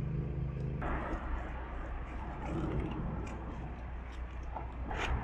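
A steady machine hum that cuts off sharply about a second in, followed by a low rumble with scattered light clicks and knocks as the recumbent trike's seat and parts are handled.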